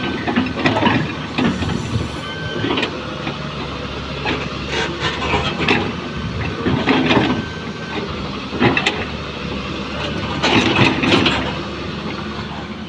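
Doosan excavator's diesel engine running steadily, with irregular clanks and scrapes as the machine digs.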